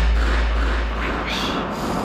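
The deep rumble of a horror-score boom, fading steadily, with a hiss above it. Two short, sharp breaths come near the end.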